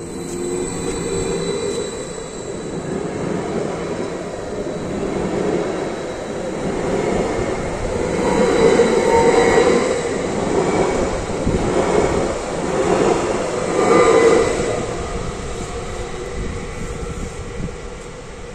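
A train passing by on the track, its wheels rumbling on the rails with a string of repeated louder beats as the cars go past. It builds up, is loudest a little past the middle, then fades away near the end.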